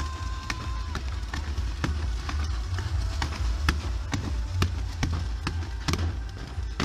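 A fireworks display going off: a rapid, irregular run of sharp bangs and crackles from rockets and spark fountains over a constant low rumble. A brief whistle ends about a second in.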